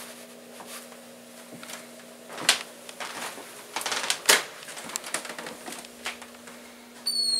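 Footsteps and sharp knocks and clicks as a door is unlatched and opened, the sharpest knock about four seconds in. Near the end comes a brief high-pitched squeak, over a steady low hum.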